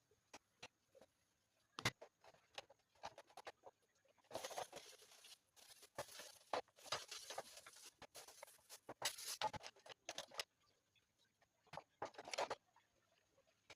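Household cleaning noises in a kitchen: scattered light clicks and knocks of objects being handled, with a stretch of scraping, rustling noise from about four to ten seconds in.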